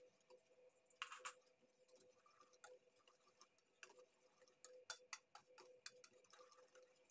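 Wire whisk clicking and scraping against a stainless steel bowl while beating pancake batter, with a quick run of ticks about five a second a little past the middle.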